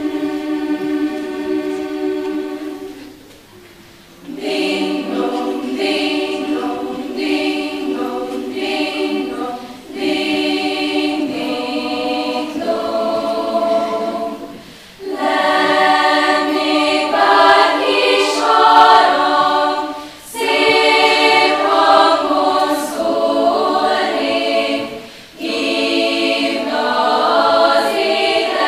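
A choir singing unaccompanied, in phrases a few seconds long broken by short pauses for breath.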